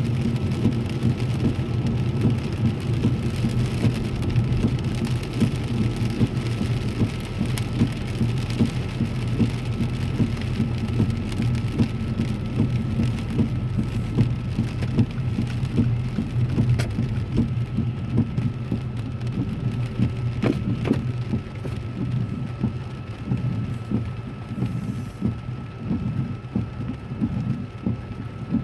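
Heavy rain pattering on a car's roof and windscreen, heard from inside the cabin, over a steady low rumble from the moving car, with a faint steady high tone throughout. The rain eases a little late on.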